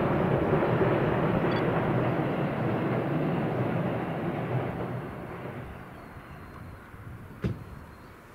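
A train running past, its rumble and rail noise fading away over the first half, then a single sharp click near the end.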